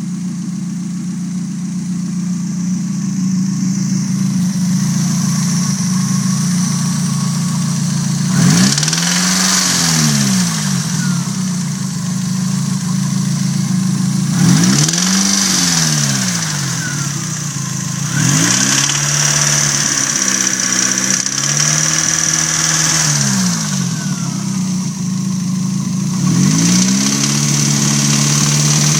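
Nissan SR20DET turbocharged 2.0 L four-cylinder idling and being blipped up in revs several times, each rise falling back to idle, with a knocking noise that the owner cannot place as rod knock or valve train.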